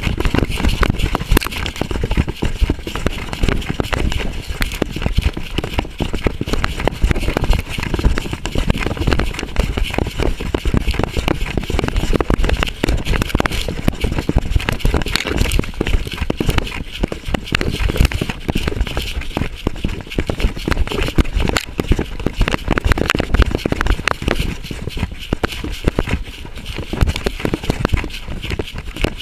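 Dog-cam noise from a camera on a running Walker coonhound: constant rustling, scraping and knocking as the dog moves through brush, with dense crackling and heavy low thumps.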